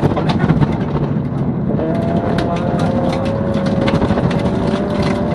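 Ford Focus V1600-class rally car's 1600 cc engine running hard at high revs, heard from inside the cabin. Frequent sharp knocks and clicks from snow and ice hitting the underbody on the snowy stage.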